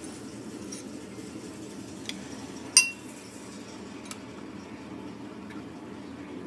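Small glass beakers clinking against each other and the bench as they are handled: a few light taps and one sharp, ringing clink near the middle, over a steady low hum.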